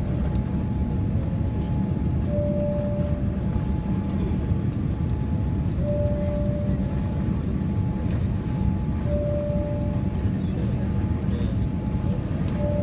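Steady low roar of cabin noise inside a Boeing 787-8 airliner, with a short beep repeating about every three and a half seconds over a faint steady hum.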